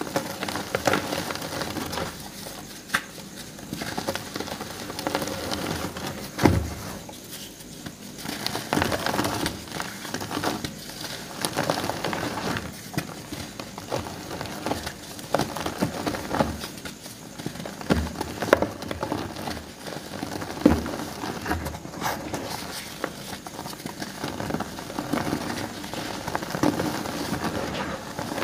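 Reformed gym chalk blocks, painted orange and coated with black spray paint, crushed and crumbled in bare hands: dry crunching and crackling with a powdery rustle throughout, and a few sharper cracks as chunks break, the loudest about six and a half seconds in and again near eighteen and twenty-one seconds.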